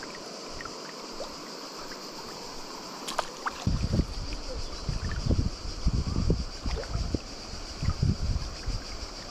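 Steady rush of flowing river water. From a little over a third of the way in, irregular low rumbling thumps join it.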